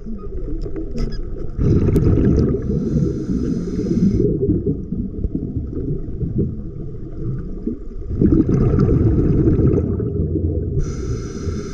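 Breathing through a snorkel: three long breaths of about two seconds each, over a steady muffled rumble of water against the microphone.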